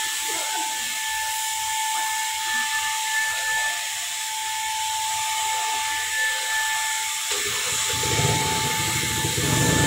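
Handheld electric paint spray gun running: a steady high whine over a hiss of spraying air and paint. About seven seconds in, a lower rushing noise joins in.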